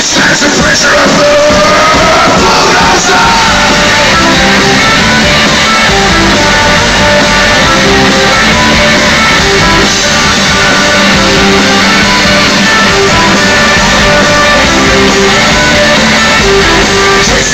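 A rock band playing live and loud, with shouted singing over the band.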